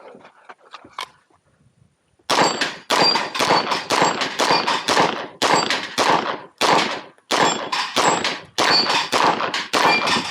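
A competition shooter firing rapidly in a 2-gun stage, starting about two seconds in, at roughly two to three shots a second, with high ringing from steel targets being hit.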